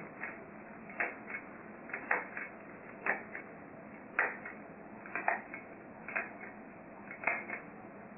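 Hand stapler driving staples one by one through a zip-top plastic bag and damp paper towel to make a straight line of staples: about eight sharp clicks, roughly one a second.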